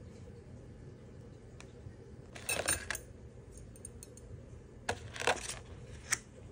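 Stainless steel chopsticks clinking against each other in two short flurries. A sharp click comes just after the second, as the plastic lid of a cup-noodle bowl is lifted off.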